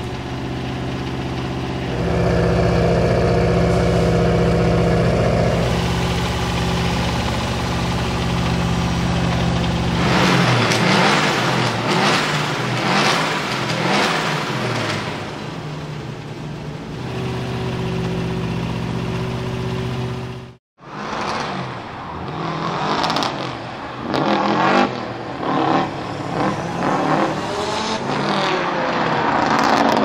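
Subaru Legacy RS Group A rally car's turbocharged flat-four boxer engine running with the bonnet open. It idles steadily, is held at higher revs for a few seconds, then is blipped repeatedly before settling back to idle. After a sudden cut, the car is driven hard, its engine revving up and down in uneven surges.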